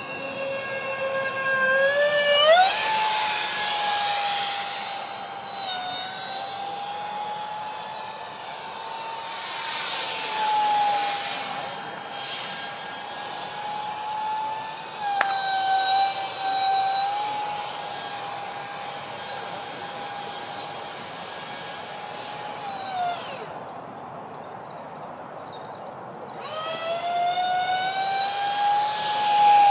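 Electric ducted fan jet of a Freewing Su-35 model plane whining in flight. The pitch steps up about two seconds in as the throttle opens and holds with small dips. A little after the middle the whine falls away almost completely for about three seconds as the throttle is cut, then spools back up in a rising whine near the end.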